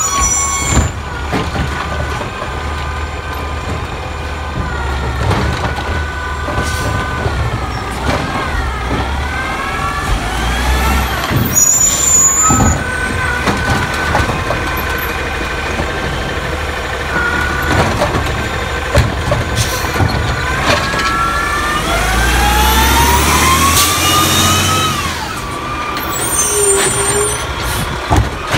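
Scorpion automated side-loader garbage truck working a cart: air brakes hiss as it stops, and the engine revs and the hydraulics whine, rising and falling in pitch as the arm grabs, lifts and dumps the cart, with knocks from the arm and cart.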